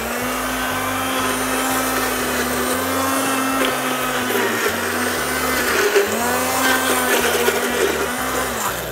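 Handheld immersion blender running in a tall plastic jug, puréeing a pepper sauce. Its motor hum holds steady at first, then rises and falls again in pitch in the second half as the blade works through the sauce.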